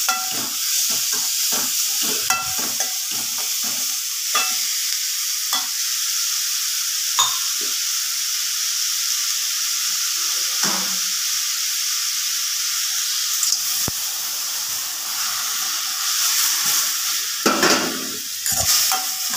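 Sliced snake gourd sizzling steadily in oil in a metal kadai. A metal spatula clicks and scrapes against the pan, often in the first few seconds and again in a burst of stirring near the end.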